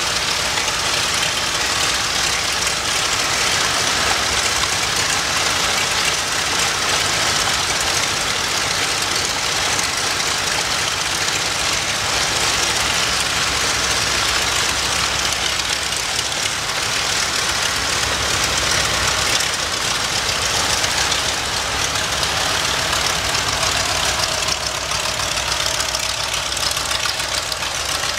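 The Mitsubishi A6M Zero fighter's Nakajima Sakae 14-cylinder twin-row radial engine idling steadily on the ground, propeller turning. The engine note shifts slightly about three-quarters of the way through.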